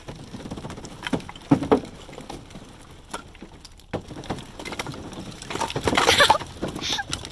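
Split firewood knocking and shifting as a truck-bed cargo unloader drags the load toward the tailgate, with scattered knocks and a louder clatter about six seconds in.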